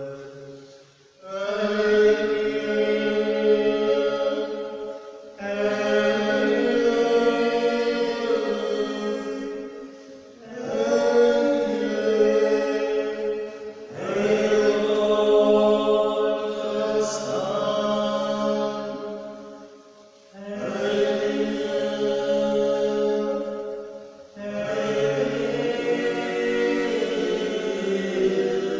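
Voices singing a slow hymn in long phrases of about four to six seconds, each followed by a brief pause for breath.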